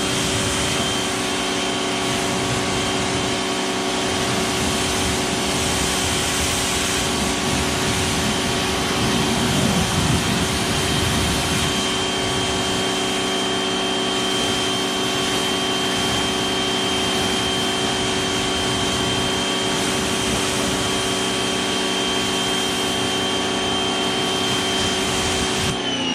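Greenworks pressure washer running under load while its gun sprays a rinse: a steady motor whine over the hiss of the water jet. It cuts off sharply near the end as the trigger is released, and the motor winds down.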